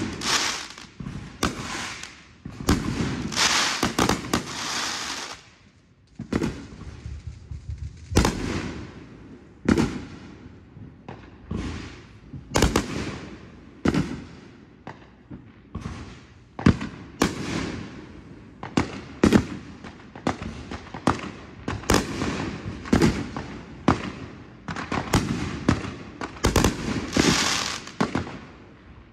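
Aerial fireworks bursting overhead in quick succession, sharp bangs with crackle. A dense run of bursts about three seconds in gives way to a brief lull near six seconds, then bangs come roughly once a second or faster to the end.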